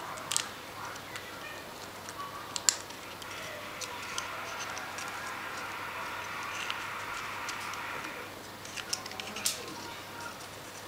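Senegal parrot's beak clicking and tapping on a wooden foraging toy as it picks at the food inside, in scattered sharp clicks, the loudest about half a second, nearly three seconds and nine and a half seconds in.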